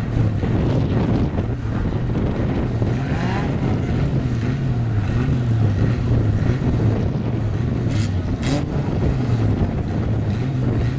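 Banger racing cars' engines running together, a steady drone that wavers slightly in pitch, with a couple of brief higher noises about eight seconds in.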